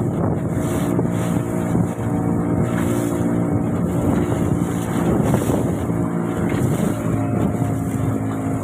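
A boat engine running steadily at an even pitch, with wind noise on the microphone.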